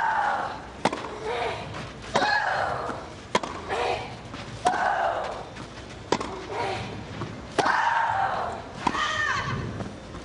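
Tennis rally on a clay court: a racket strikes the ball about every second and a half, each shot followed by a player's loud vocal grunt, about eight exchanges in all.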